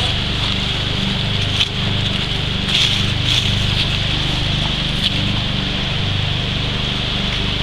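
Steady rush of a shallow, rocky river running over stones, with a constant low rumble beneath it and a few faint clicks or splashes.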